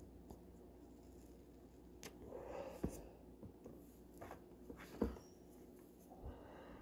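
Faint room hum with a few scattered short clicks and knocks, the two loudest about three and five seconds in.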